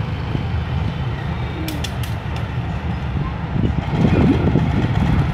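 Diesel locomotive engine running: a low, steady rumble, mixed with wind on the microphone that swells about four seconds in.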